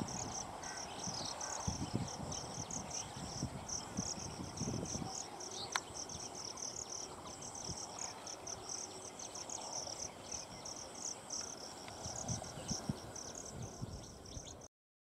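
Insects chirping in a continuous, rapidly pulsing high-pitched chorus, over uneven low rumbling gusts and a single sharp click about six seconds in. The sound cuts off abruptly just before the end.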